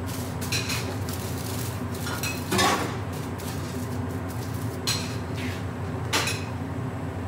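Aluminium stockpot lid and its foil seal being handled as the pot is sealed for steam cooking: four or five sharp metal clinks and taps, the loudest about two and a half seconds in, with foil crinkling as it is pressed round the rim. A steady low hum runs underneath.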